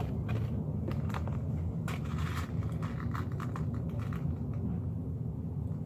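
Small beads poured into a bowl of slime glue, a scatter of light clicks over the first few seconds, over a steady low rumble.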